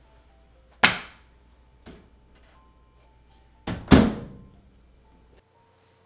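Two loud knocks: one about a second in and a double knock near four seconds, each ringing briefly, as a frozen-meal tray and the microwave are handled and set down on a glass cooktop. Softer clicks come between them.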